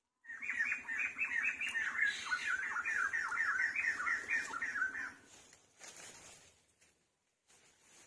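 A rapid series of shrill animal calls, about four a second, lasting about five seconds.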